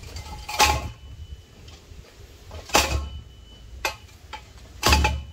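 Three heavy thuds about two seconds apart, with a lighter knock between the last two, as a steel deep-well pipe is pounded down into the ground by hand.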